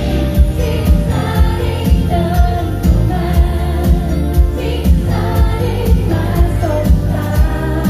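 Live pop band playing with a female lead vocalist singing into a microphone, over drums keeping a steady beat.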